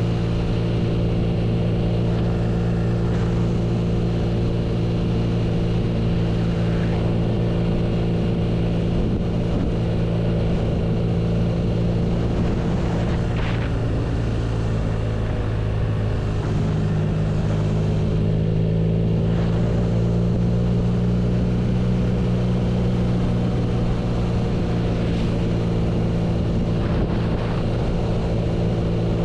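BMW R nine T's 1170 cc boxer twin running steadily at a constant engine speed, its pitch shifting slightly about halfway through. A few brief whooshes pass over it.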